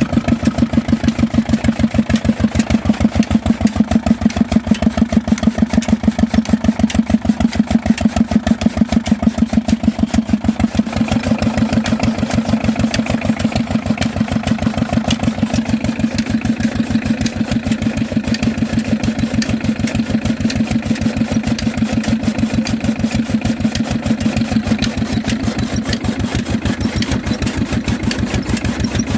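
An engine running steadily with an even, rapid pulsing, a little quieter and changing slightly in tone about eleven seconds in.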